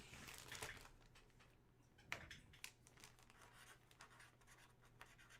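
Faint scratching of a pen writing on paper, with light ticks and a sharper tick about two seconds in.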